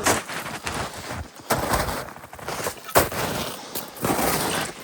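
Someone moving on foot through snowy brush: irregular crunching and sharp cracks, the loudest about one and a half and three seconds in.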